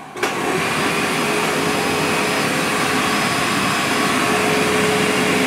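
Dirt Devil bagless upright vacuum cleaner switched on with a click, then its motor running steadily with a constant whine over a loud rush of air.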